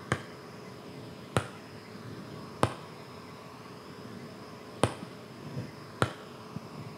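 A marker tip tapping a whiteboard, five sharp taps spaced about one to two seconds apart with a few fainter ones, pointing out solfa notes one at a time, over faint room hum.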